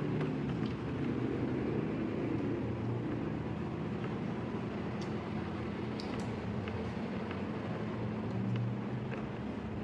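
Steady low whirring hum, with a few faint light clicks about halfway through.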